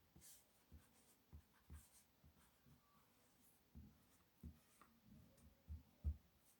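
Eraser rubbing out pencil lines on paper in short, quiet strokes, with soft irregular bumps against the drawing surface.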